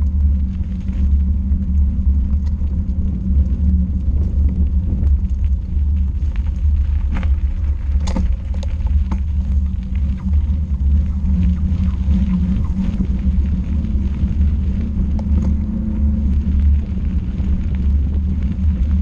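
Steady low rumble from a vehicle riding along a rough dirt track, with scattered knocks from bumps, the sharpest about eight seconds in.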